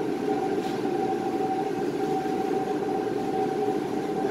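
Steady mechanical drone with a constant mid-pitched hum running through it, unchanging throughout.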